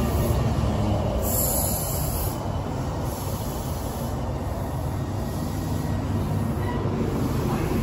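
Meitetsu 3500 series electric train slowing to a stop alongside the platform, its wheels rumbling steadily on the rails, with a brief high squeal about a second and a half in.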